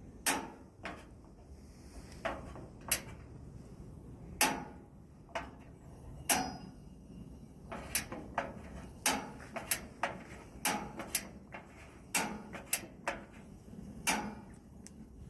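Gas burner igniter on a Blackstone propane pizza oven clicking repeatedly: sharp separate clicks, coming faster in the second half, while the burner on one side fails to light.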